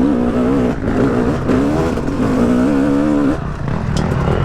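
Yamaha YZ250X two-stroke dirt bike engine running on a trail, heard through a mic inside the rider's helmet, its pitch wavering up and down as the throttle is worked. Near the end the engine note drops away, leaving a low rumble and a few knocks.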